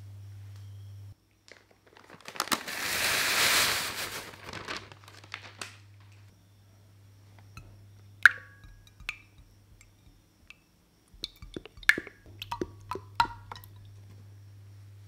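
Ganache being prepared: a loud noisy pour swells and fades about two to five seconds in, followed by scattered sharp clicks and taps of containers against a saucepan and a glass bowl, a few with a short ring.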